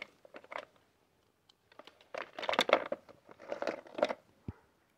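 Small plastic toys and Play-Doh tubs clattering against each other and a clear plastic storage box as they are rummaged through, in three short bursts of knocks and scrapes, with a single dull thump near the end.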